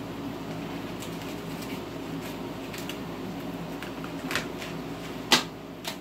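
Apivar miticide strips handled and pulled from their packet, giving rustles and crackles that grow sharper near the end, the loudest a sharp crackle about five seconds in, over a steady low hum.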